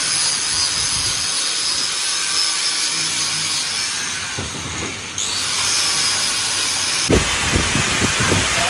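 Handheld angle grinder cutting into a metal exhaust pipe, a steady hissing grind while the pipe is trimmed to fit a turbo. Its sound changes suddenly about five seconds in, and near the end it gives way to a run of irregular metal knocks.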